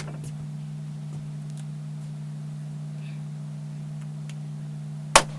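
A steady low hum, with one sharp click near the end.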